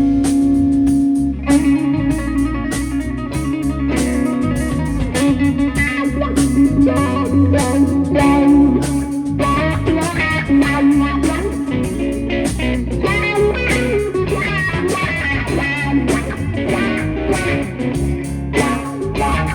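A live rock band playing an instrumental passage: electric guitar lead over bass guitar and drums.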